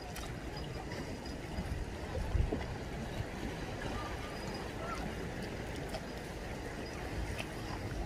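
Harbour water lapping, a steady wash of water noise with a low rumble underneath and one low thump about two and a half seconds in.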